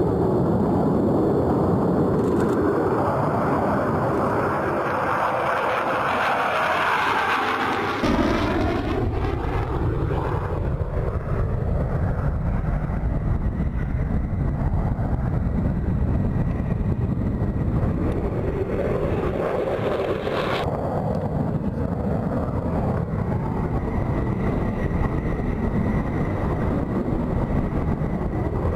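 F-16 jet engine noise: a steady jet roar, with a sweeping, phasing sound as an aircraft passes about a quarter of the way through. The roar shifts abruptly twice.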